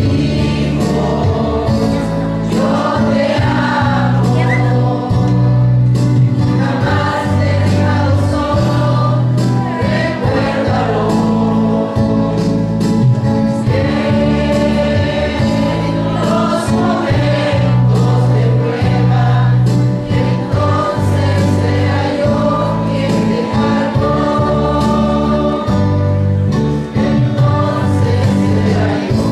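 A group of voices singing a hymn over steady, sustained keyboard chords.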